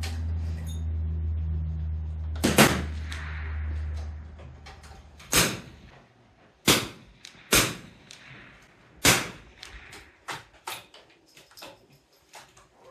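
.22 LR rimfire rifles firing single shots at irregular intervals from several shooters on the firing line, some loud and close, others fainter. A steady low hum runs beneath the first half and stops about six seconds in.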